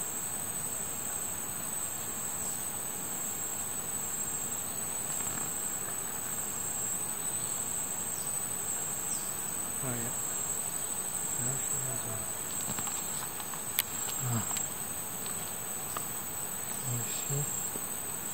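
Rainforest insect chorus: a steady high-pitched shrill that holds throughout, with a single sharp click about fourteen seconds in.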